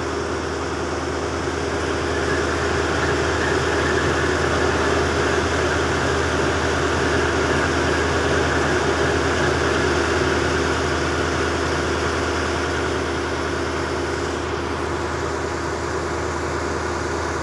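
A boat's engine running steadily with a low hum, its noise swelling somewhat for several seconds in the middle.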